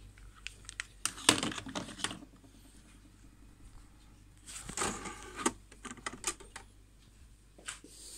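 Handling noise: scattered clicks, taps and rustles as small plastic objects are picked up and moved. The sharpest click comes a little over a second in, with another cluster of clicks and rustling around five seconds in.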